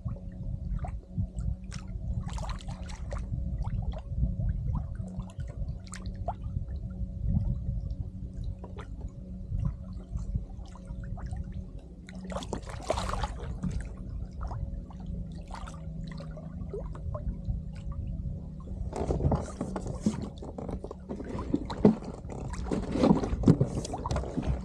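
Water lapping and gurgling around a kayak, with a faint steady hum underneath. Louder splashing and knocking comes in briefly about 12 seconds in and again for the last few seconds.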